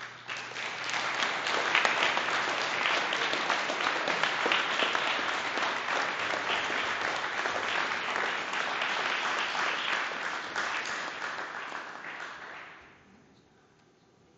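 Applause from a class of taekwondo students clapping together. It starts suddenly, holds for about twelve seconds and then dies away.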